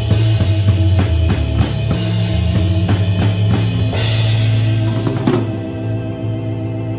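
Drum kit played along to a recorded rock song with guitar, its snare muffled under a cloth cover. Even, quick strokes give way to a cymbal crash about four seconds in, and the closing chord then rings on and fades.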